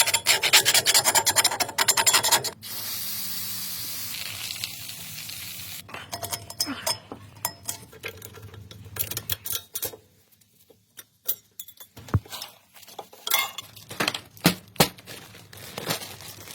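Fast scraping at first, then a steady hiss of about three seconds from an aerosol spray can, then scattered clicks and knocks of metal brake parts being handled.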